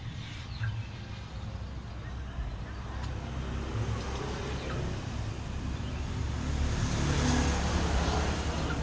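A low motor rumble that grows louder about two-thirds of the way in, peaks near the end and then eases off.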